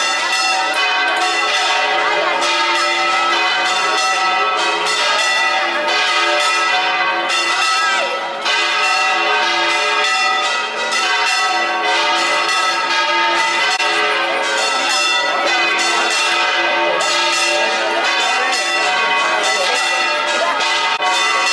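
Church bells pealing continuously, strike after strike overlapping into a steady ringing.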